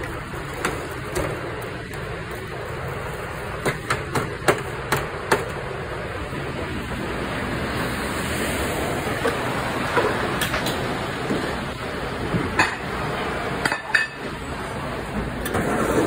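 Kitchen clatter: scattered sharp knocks and clinks of items being handled, over a steady background hum. The knocks come in a quick run about four to five seconds in and again from about ten seconds on.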